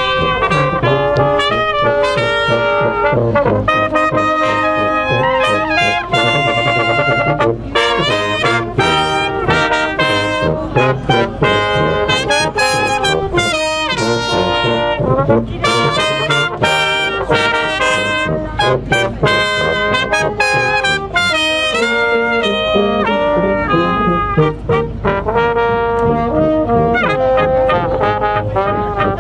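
A brass ensemble of French horn, trumpets, trombone and tuba playing a tune together.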